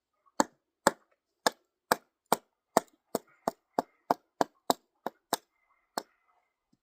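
Kindling being chopped: about fifteen sharp, single chops of a blade into wood, quickening from about two a second to about three a second, then stopping near the end.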